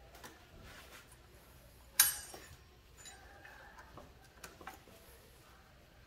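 Quiet clicks and clinks of tools and parts being handled during engine work: one sharp click about two seconds in, then a few lighter ticks.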